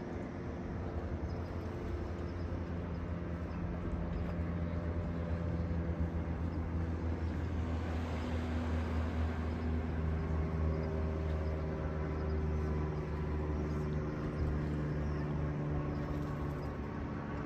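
An engine running steadily: a low hum with a few higher tones above it that shift a little in pitch.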